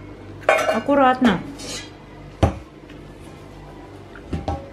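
Stainless steel pots and bowls being handled by a toddler on the floor: one sharp metallic clank about two and a half seconds in, then a couple of lighter knocks near the end.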